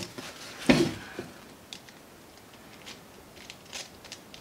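Handling noise of a TIG welding torch being assembled: a knock about a second in, then a few light clicks as the torch's small consumables, a cup and collet parts, are fitted by hand.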